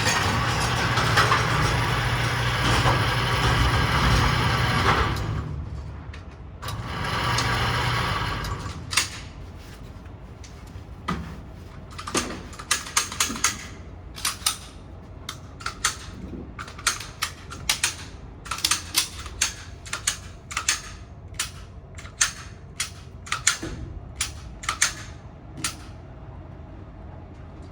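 Loud rushing noise over a steady low hum for about five seconds and again briefly, then, from about nine seconds in, some two dozen single gunshots fired one after another, a fraction of a second to a second apart.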